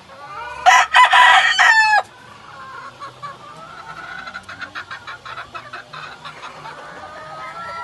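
A rooster crows loudly once, a call of about a second and a half that ends on a falling note, followed by quieter, rapid clucking from the flock.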